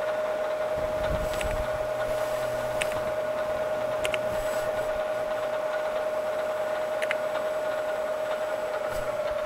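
Bridgeport Series I EZ Trak DX CNC knee mill running with its spindle on: a steady high whine over a low hum, with a few faint clicks.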